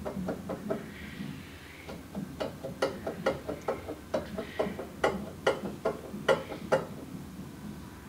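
Damaged double-row front wheel bearing of a VW Pointer, turned by hand at the hub, grinding with a rough rumble and a run of sharp clicks, about four a second, from about two seconds in. The bearing is worn out.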